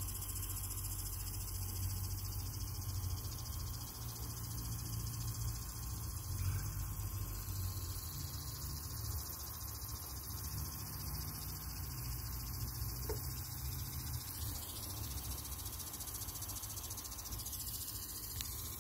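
Steady high-pitched insect chorus, such as crickets, with a low rumble underneath that comes and goes.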